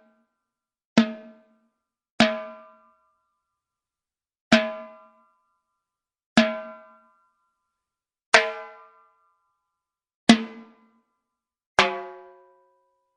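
Timbales struck with single hits, seven in all, spaced one to two seconds apart at an uneven pace. Each hit rings briefly before dying away.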